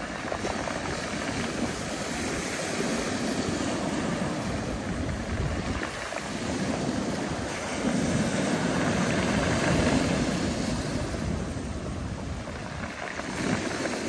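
Black Sea surf breaking and washing over a pebble beach: a continuous rushing wash that swells loudest a little past the middle.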